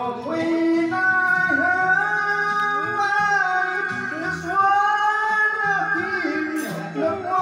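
A man singing a slow ballad into a handheld karaoke microphone over a backing track with guitar and bass, holding long notes that slide between pitches.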